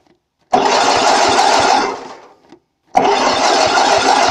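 Starter cranking the 8 HP Briggs & Stratton single-cylinder engine of a lawn tractor in two bursts of about a second and a half each, with a fast even pulsing of compression strokes. The engine turns over but does not fire.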